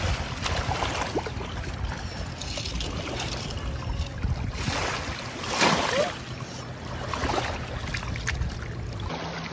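A small puppy wading and splashing through shallow sea water at the shoreline, in repeated splashes, the biggest about two thirds of the way through, over a steady rumble of wind on the microphone that cuts off near the end.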